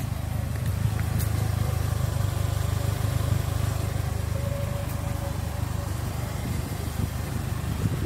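2016 Polaris Slingshot's 2.4-litre four-cylinder engine idling with a steady low hum.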